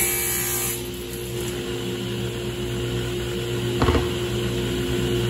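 Table saw finishing a cut through a plywood strip, the cutting noise stopping within the first second, then the blade spinning freely with a steady hum. A short knock about four seconds in.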